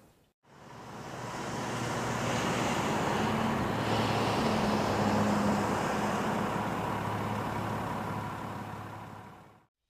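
Steady engine-like running with a low hum under a broad rushing noise, fading in just after the start and out just before the end.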